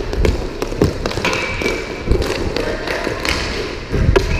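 Roller hockey play in an echoing indoor rink: sharp clacks and taps of sticks and puck at irregular moments over the low rumble of inline skate wheels on the floor.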